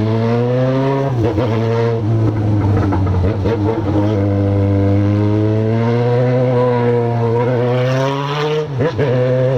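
Yamaha XJ6's inline-four, fitted with a straight-through 4-into-1 aftermarket exhaust, pulling through the gears at moderate road speed, heard from the rider's seat. The engine note climbs steadily in pitch, with brief drops at gear changes about a second in and again near the end.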